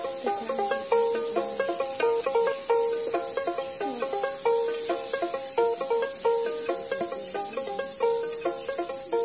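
Field recording of African Pygmy music: a plucked instrument repeating a short melodic figure over and over, with a steady high chirring of insects behind it.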